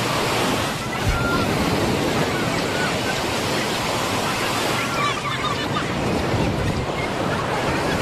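Ocean surf washing onto a beach, a steady rushing noise, with faint scattered voices of beachgoers.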